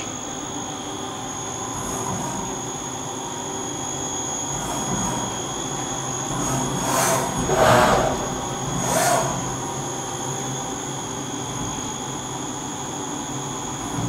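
Fadal 4020 vertical machining center running a program: a steady mechanical whine and hum, with three louder rushing surges a little past the middle, the loudest about eight seconds in.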